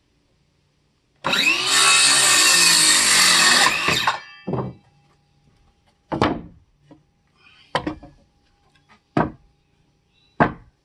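Porter-Cable cordless circular saw cutting through a 2x4, a cut of about three seconds that ends as the blade spins down. Then four sharp knocks, about a second and a half apart.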